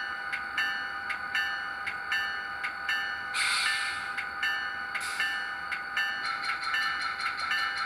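Recorded locomotive bell from the sound decoder of an HO-scale EMD GP30 model, ringing steadily at about two to three strikes a second through the model's small speaker over the idling diesel sound. Two short air hisses come through about halfway.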